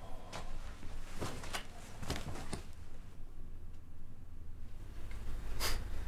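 A few light knocks and rustles, with a low steady hum underneath that grows slightly stronger in the second half.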